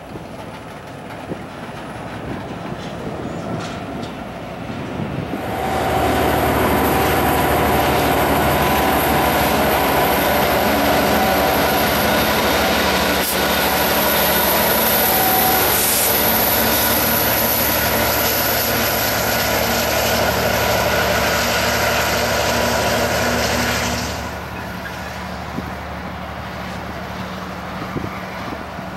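Norfolk Southern GP33ECO diesel locomotive running as it moves along the track with flat cars, engine drone mixed with wheel noise on the rails. The sound steps up suddenly to loud about five seconds in as the locomotive passes close, and drops back to a quieter, more distant engine sound about a second and a half from the end.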